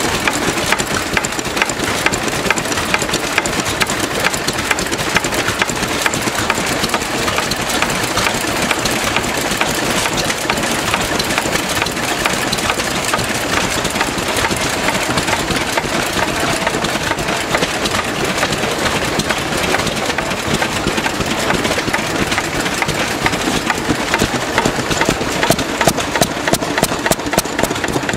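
Several vintage stationary engines, Lister engines among them, running together at a steady speed: a dense, overlapping beat of firing strokes and exhaust.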